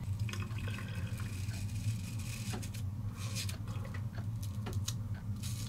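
Gillette Labs heated razor's five-blade cartridge scraping through lathered stubble in several short, irregular strokes, over a steady low hum.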